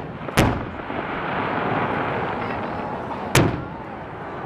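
Aerial fireworks exploding: two sharp bangs about three seconds apart, with a steady rushing noise between them.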